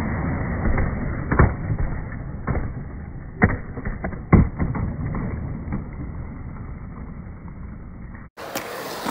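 Skateboard wheels rolling on a concrete bowl, with several sharp clacks of the board; the loudest comes about four and a half seconds in, around the fly-out over the coping. The sound is dull and muffled throughout, then cuts off suddenly near the end.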